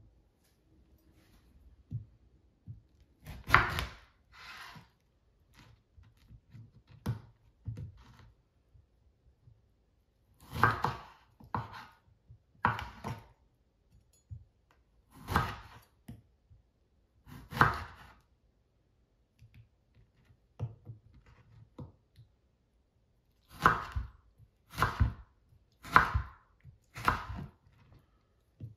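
Knife chopping food on a cutting board: slow, separate cuts every second or two, coming about once a second near the end.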